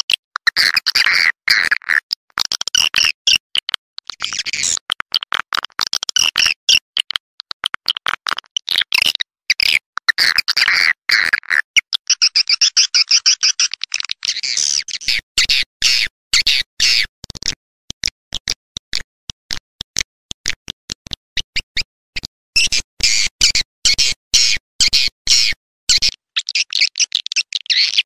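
Edible-nest swiftlet call recording of the kind played to lure swiftlets into nest houses: rapid, high-pitched chirping twitters chopped by many brief silences. The calls thin to sparse clicks in the middle and pick up again near the end.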